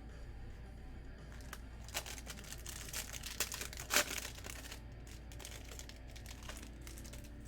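Foil wrapper of a trading-card pack crinkling and tearing: a cluster of crackles from about two seconds in, loudest near four seconds, dying away about five seconds in. Quiet background music plays underneath.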